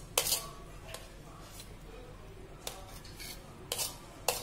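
A steel spoon scraping diced onion out of one stainless steel bowl into another, clinking sharply against the metal rims several times with quieter scraping between.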